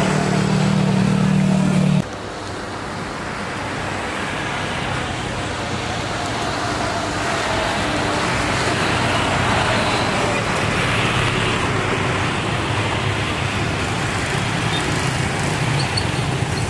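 Steady rushing noise of engines and traffic. A low hum cuts off abruptly about two seconds in, and the rushing then slowly swells and holds.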